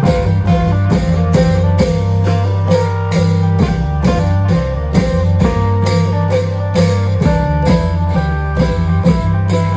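Isan klong yao long-drum band playing: a plucked-string melody runs over a steady, even drum beat.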